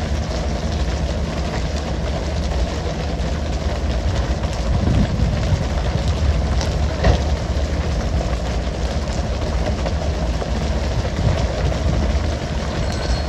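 A fishing boat's engine running steadily under the hiss of water spray and the sea, with a few short sharp knocks, the clearest about seven seconds in.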